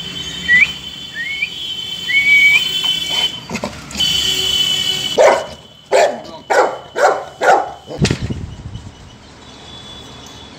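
Dogs greeting through a gate: three short, high, rising whines, then about five barks in quick succession some five seconds in, followed by a single thump.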